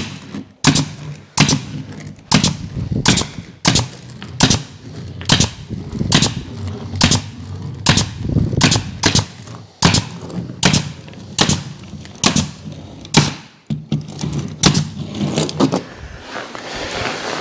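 Pneumatic staple gun firing staples through an OSB panel into a wooden door frame: a long series of sharp shots, roughly one or two a second.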